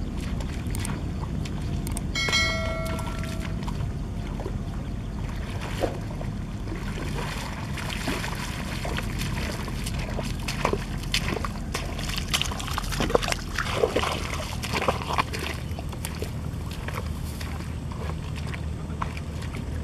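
Wind buffeting the microphone, with footsteps splashing and sloshing through shallow muddy water from about six seconds in, thickest between about ten and sixteen seconds. A short pitched tone sounds about two seconds in.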